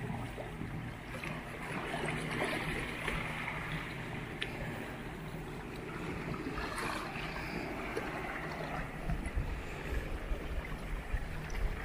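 Small sea waves lapping and washing against shoreline rocks and sand in a calm bay. Low wind rumble on the microphone, gusting more strongly near the end.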